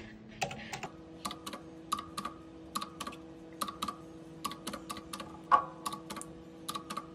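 Keys of a retro typewriter-style calculator with round keycaps being pressed one after another, each press a sharp click, often in quick pairs, as a list of numbers is added up.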